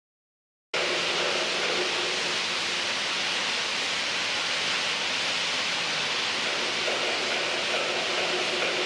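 A steady, even rushing hiss with a faint low hum underneath, cutting in abruptly about a second in.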